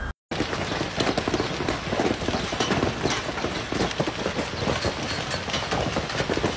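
Hailstones pelting down onto a paved road, a dense, continuous clatter of countless small impacts.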